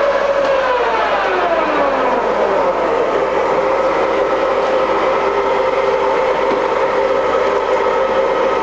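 TOS SN50B centre lathe's headstock gearing running. A gear whine falls in pitch over the first couple of seconds, then the machine runs on with a steady whine and hum.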